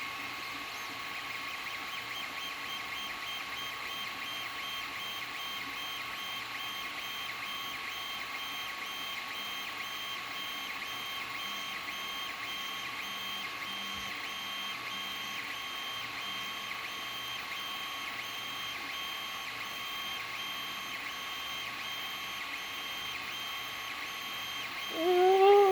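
Creality Ender-3 3D printer running a print: a steady whir of cooling fans with the stepper motors' fixed whining tones. Near the end, a cat meows once, louder than the printer.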